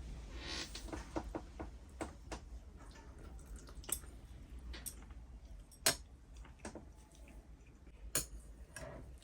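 Scattered light clicks and taps of small household objects being handled, with a brief rustle in the first second and a few sharper clicks standing out.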